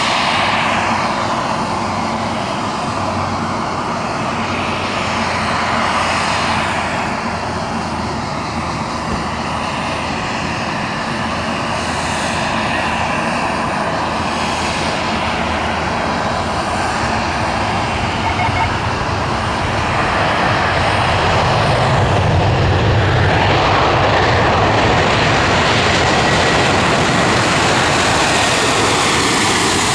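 Airliner engines running close by: a steady, loud rush that grows louder and deeper about two-thirds of the way through, with a faint high turbine whine near the end.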